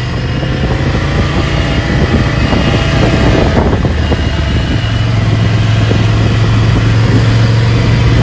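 Motorcycle engine running as the bike rides along at low speed, mixed with road and wind noise. The engine note rises in the first few seconds as it pulls away.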